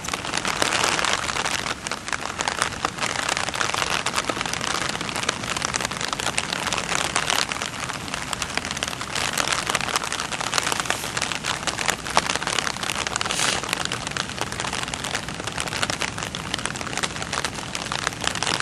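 Steady rain falling: an even hiss of many small drop hits.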